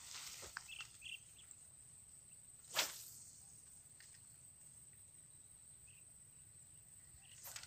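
Faint, steady high-pitched insect drone, broken about three seconds in by one short, sharp noise that is the loudest thing here, with a few soft clicks near the start and the end.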